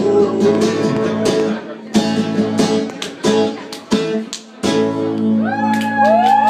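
Live band playing an instrumental passage: guitar chords strummed in short, sharp hits with brief stops between them, then held chords under high gliding tones near the end.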